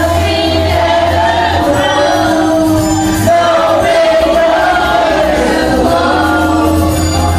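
Several voices singing a song together over a karaoke backing track, with long held notes over a steady bass line.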